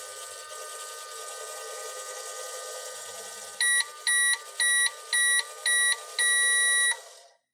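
Toy microwave running with a steady electronic hum, then beeping five short times and once long, starting about halfway through, to signal that its cycle is done. The hum cuts off right after the last beep.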